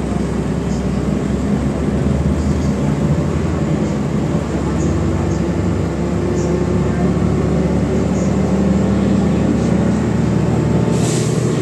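Engine drone and road noise of a MAZ-105 city bus under way, heard from inside the passenger cabin, steady throughout with faint light clicks.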